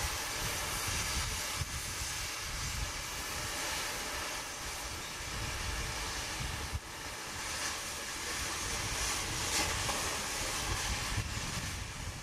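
Steady hissing noise with an uneven low rumble underneath, briefly dipping about seven seconds in.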